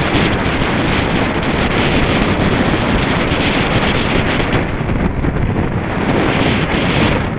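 Loud, steady wind rush on a cyclist's camera microphone from riding a road bike at speed.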